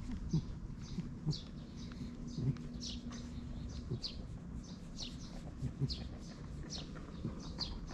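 Small birds chirping throughout: short, high, falling notes, one or two a second. Underneath is the soft low rustle of a hand stroking a cat's fur close by, with a few small knocks.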